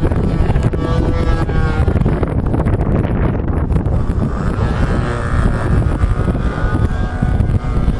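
Strong wind buffeting the microphone, with the faint wavering whine of a model aircraft engine in flight above it.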